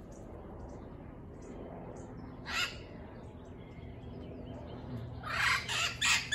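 Parrots squawking: one harsh call about two and a half seconds in, then a quick run of loud, harsh squawks, about three a second, from about five seconds on.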